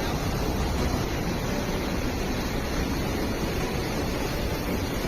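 Steady rushing noise of rough, churning water, with wind buffeting the microphone.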